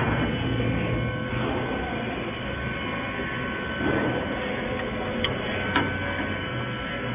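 Steady machine hum of an automatic wire-rack spot-welding line, with a few thin steady tones in it. Two short sharp clicks come about two-thirds of the way through.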